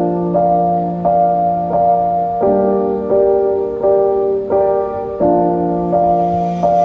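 Background music: a gentle piano melody of evenly paced notes over sustained low chords.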